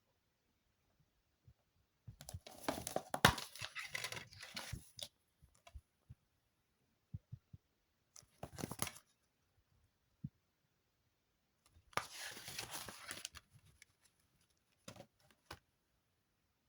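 Plastic wrapping being torn and crinkled off a DVD case, in three bursts, with scattered clicks and taps between them.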